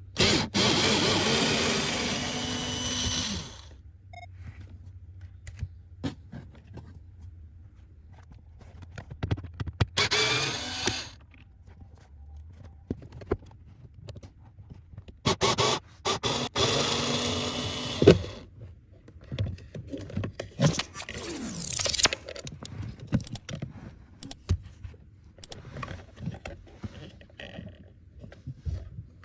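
Hands-on work on a car's air-conditioning blower: clunks and scrapes of parts being handled, with three loud noisy bursts a few seconds long and a short falling whine about two-thirds of the way through.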